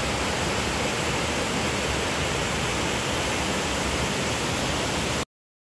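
Waterfall rushing steadily over rocks into a pool, a loud even roar that cuts off suddenly about five seconds in.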